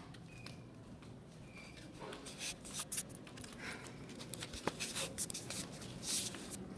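Hands shifting and rubbing on a handheld iPad Air right at its built-in microphone: a string of irregular scuffs, rubs and knocks, busiest from about two seconds in, over a low steady hum.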